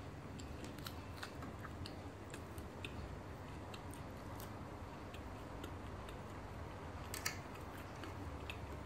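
A person chewing roti prata close to the microphone: small irregular mouth clicks over a steady low hum, with one sharper click about seven seconds in.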